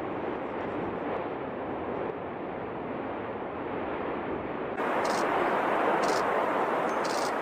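A steady rushing noise gives way abruptly, about five seconds in, to the louder noise of the Cumbre Vieja volcano erupting on La Palma. Three sharp blasts come about a second apart as the vent throws lava fragments into the air.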